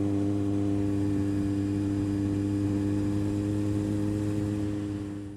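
Kawasaki Z750R's inline-four engine running at a steady speed on the move, with wind noise. Its level eases down in the last half second and then cuts off abruptly.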